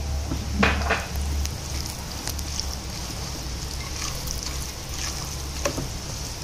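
Black plastic spatula stirring soaked broad beans and grated coconut in a stainless steel pot, with scattered scrapes and knocks against the pot, the loudest just under a second in. Under it runs a steady low hum and a faint hiss.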